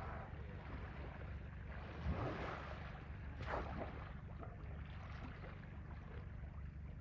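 Wind buffeting the microphone in a steady low rumble, with two brief swishing noises about two and three and a half seconds in.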